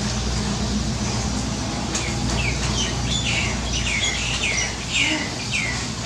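Steady rain pattering on shallow floodwater, with a bird giving a rapid series of short, falling chirps, about three a second, from about two seconds in. A low steady hum lies underneath.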